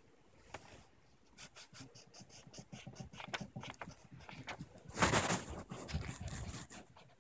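Pencil scratching on paper in quick short strokes, with a louder rustle about five seconds in.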